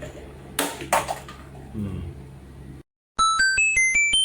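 Two sharp knocks over room noise; then, after a sudden cut to silence, a short electronic chime jingle of about eight quick notes stepping up and down in pitch, which ends abruptly.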